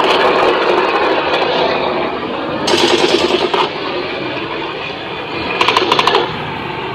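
Performance soundtrack of dense noise played from portable amplifiers, with two short stretches of rapid rattling pulses.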